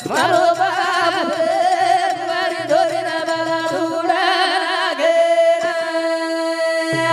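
Men singing a Banjara devotional bhajan in a wavering, ornamented melody over a steady held drone. A low rhythmic beat runs under it and drops out a little past halfway.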